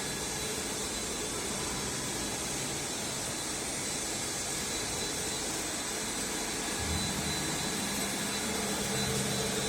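Cable-making machinery running steadily, with an even mechanical noise, a faint high whine and a low hum that swells slightly about two-thirds of the way through.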